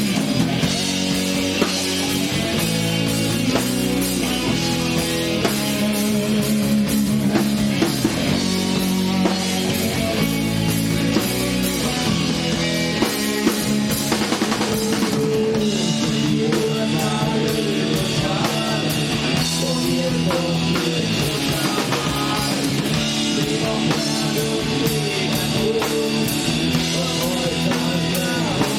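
A live rock band playing: drum kit and electric guitar with a steady beat.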